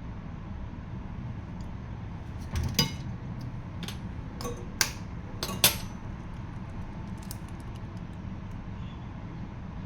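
A few short, sharp clinks and knocks of kitchen utensils and dishes, about four of them, the loudest near the middle, over a steady low hum.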